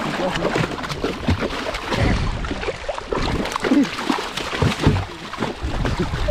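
Water splashing and sloshing as a hooked dolphinfish thrashes at the surface beside a boat, in a string of irregular splashes.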